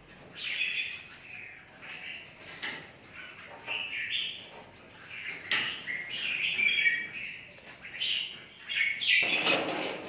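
Caged songbirds chirping again and again, with two sharp clicks and a short rustle near the end.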